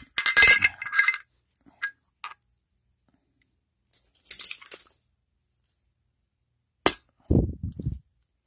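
Metal clinking and rattling as a steel seal-driver tool is set onto a crankshaft seal in an aluminium engine crankcase, a couple of light ticks, then one sharp hammer knock near the end, followed by a short low-pitched sound.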